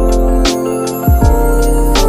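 Background music: mellow keyboard chords over a deep bass with a steady beat and light hi-hat ticks.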